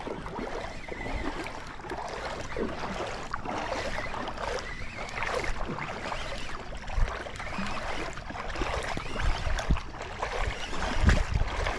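Water sloshing and splashing around a fishing kayak, with low thumps near the end, as from wind or knocks on the microphone.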